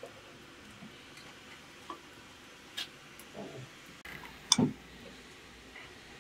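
Apples being taken from an aluminium bowl and set on a small metal plate: a few light clicks and taps, then one louder knock with a brief metallic ring about four and a half seconds in.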